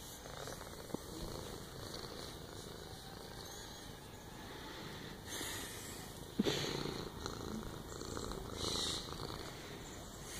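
Domestic cat purring steadily as it is stroked. About six and a half seconds in, a short sharp sound stands out louder than the purring.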